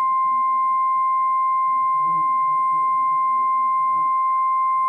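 NOAA Weather Radio warning alarm tone, a loud, steady 1050 Hz tone from a Midland weather alert radio's speaker, held as one long unbroken tone. It signals that a warning is being broadcast, here a flash flood warning.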